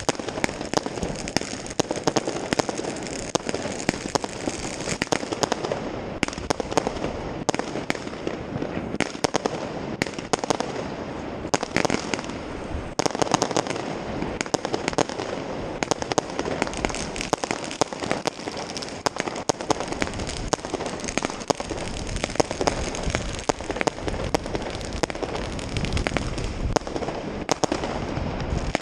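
New Year's fireworks and firecrackers going off all around, a continuous dense crackle of many bangs, some sharp and close, others more distant.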